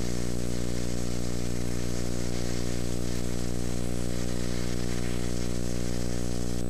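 Stick (shielded metal arc) welding arc burning steadily with an even sizzling hiss over a strong, steady electrical hum.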